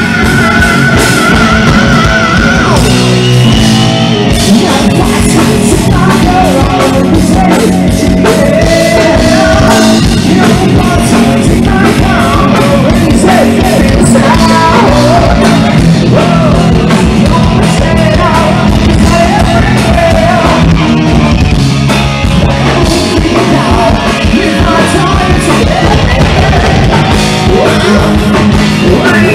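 Live rock band playing loud, with drums, bass, electric guitar and keyboards under a singer's voice.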